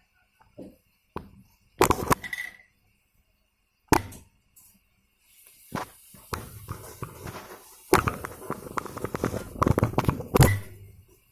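Scattered sharp knocks, then a dense run of clattering and rattling about eight seconds in that stops suddenly near the end.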